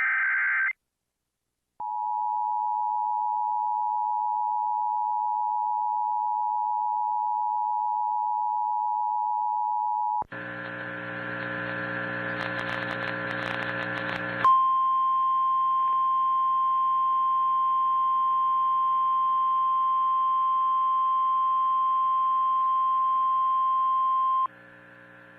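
Emergency Alert System tones: the last data burst of a SAME header, then the two-tone attention signal, two steady tones near 850 and 960 Hz held for about eight seconds. After that come about four seconds of harsh, crackling buzz, then the NOAA Weather Radio 1050 Hz warning alarm tone held steady for about ten seconds over faint hiss. It cuts off near the end to a low hum, the lead-in to a broadcast tornado warning.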